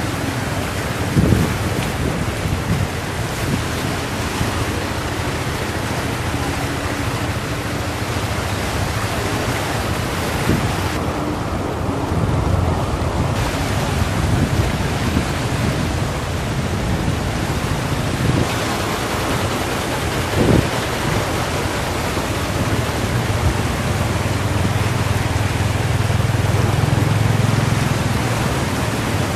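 Steady rushing of floodwater pouring across a road, with vehicle engines running under it; one engine grows louder near the end as a motorbike wades through. A couple of brief knocks sound about a second in and again later.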